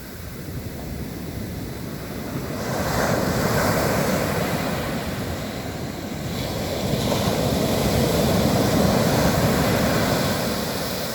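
Sea surf: two waves breaking and washing up the beach, the first swelling about two and a half seconds in and fading near the middle, the second building again and running longer before easing off near the end.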